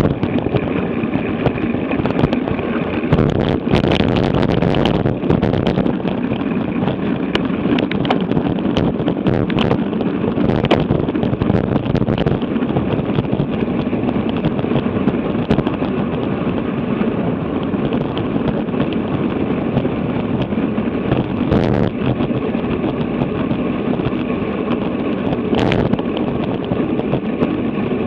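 Steady rush of wind over an action camera's microphone, mixed with tyre noise from a bicycle ridden at 20 to 30 mph, with a few sharp knocks scattered through it.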